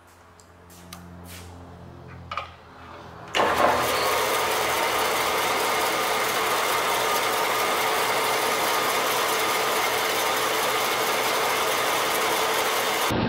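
A 16-inch vertical bandsaw: a faint hum and a few clicks, then about three and a half seconds in the saw is heard running loud and steady, its blade turning with no cut being made.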